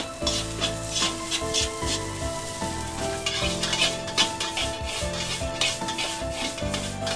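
Metal spatula scraping and stirring egg fried rice in a wok over a gas flame, the rice sizzling, with quick repeated scrapes as the wok is tossed.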